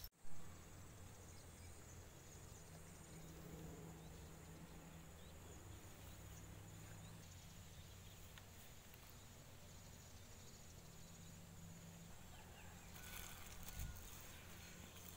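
Near silence: faint outdoor background with a steady low hum, and a soft knock near the end.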